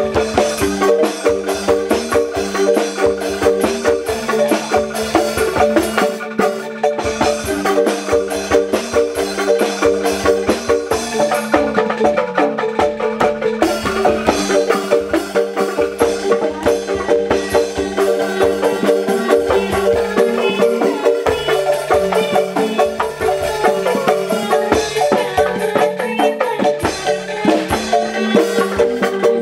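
Traditional Javanese-style music played on xylophone-type mallet instruments with drum, a repeating pattern of struck notes over a steady beat.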